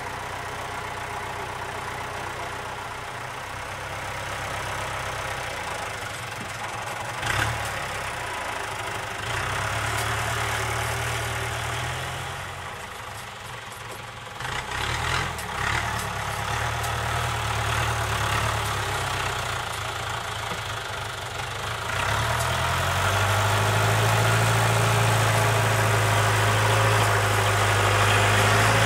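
Farm tractor's diesel engine running as the tractor moves off with a load on its loader. The revs rise and fall, with a couple of knocks, and it runs louder and steady for the last several seconds.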